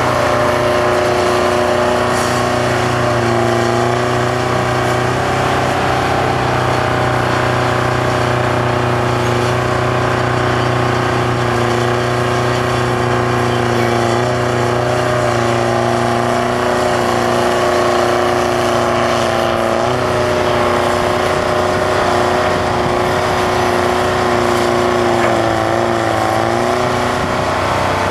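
Detroit Diesel 4-71 two-stroke engine of a Bucyrus-Erie 20-H excavator running steadily under working load while the machine digs and swings. The pitch sags briefly near the end.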